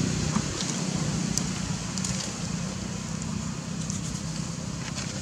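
Steady low outdoor rumble with a few faint crackles and ticks scattered through it.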